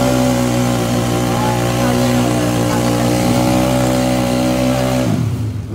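Yamaha Mio drag scooter's big-bore single-cylinder engine with a 66 mm piston and open exhaust, held at steady high revs while the rear tyre spins in a burnout on wet tarmac. The revs fall away and the engine goes quiet about five seconds in.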